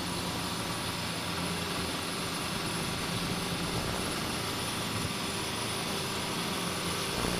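Lincoln Town Car stretch limousine's V8 engine idling steadily, an even low hum under steady hiss.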